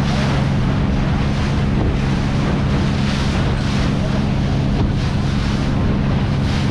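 Boat under way: a steady low engine hum under water rushing along the hull and wind buffeting the microphone, the rush swelling and easing every second or so.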